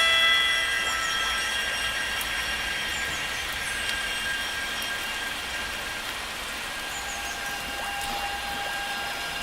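A struck metallic object ringing with many high overtones, fading slowly over several seconds, with a second steady tone coming in about seven seconds in.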